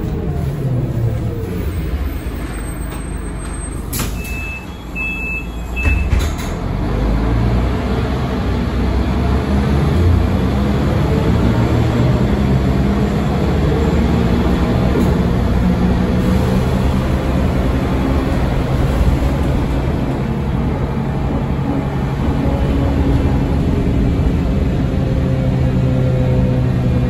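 Volvo B9M city bus heard from inside the passenger saloon. The engine slows as the bus pulls up, and around four to six seconds in come a sharp burst of air and a few short beeps. The engine then picks up and runs steadily as the bus pulls away.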